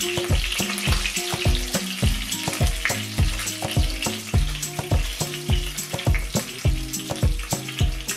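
Floured pieces of pollock sizzling in hot vegetable oil in a frying pan as they are laid in, the oil spitting and crackling. Background music with a steady beat plays under it.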